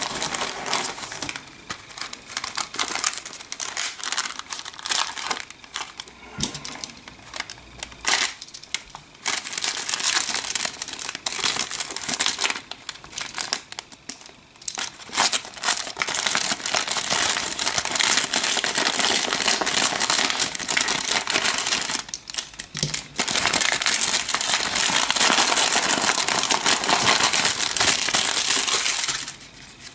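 Plastic wrap and a white mailer envelope crinkling and rustling as they are handled, slit and torn open. The crinkling comes in short bursts at first, then runs on almost without a break through the second half.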